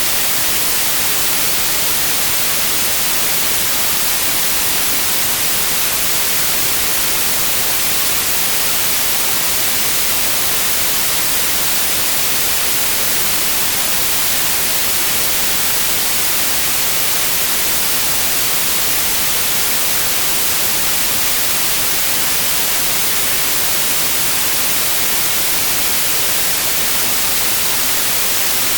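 Steady synthetic white noise, an even hiss with no change and no other sound.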